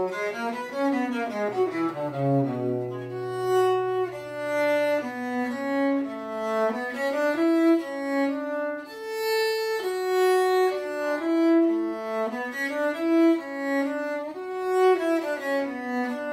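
Tenor viol played solo with the bow, a running melody of quick notes moving up and down.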